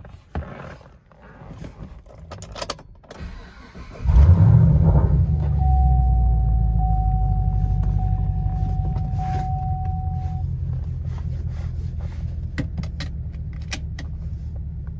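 After a few clicks and rattles, the Camaro SS's 6.2-litre V8 cranks and catches about four seconds in, then settles into a steady low idle rumble that slowly eases. A steady electronic tone sounds for about five seconds just after the start.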